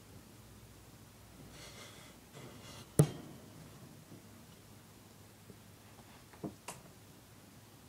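Quiet room with a soft rustle, then a single sharp knock about three seconds in, and two faint clicks near the end.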